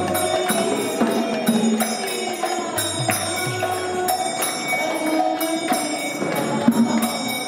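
Devotional kirtan: a group of voices chants to the strokes of a two-headed mridanga drum, whose bass strokes bend in pitch, with a steady rhythm of ringing hand-cymbal strikes.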